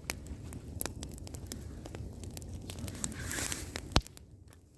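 Light crackling and rustling from an 8mm camcorder video cassette, with scattered small clicks and one sharp click about four seconds in.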